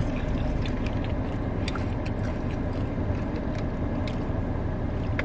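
Steady low hum of a car with its engine running, heard inside the cabin, with a few faint clicks over it.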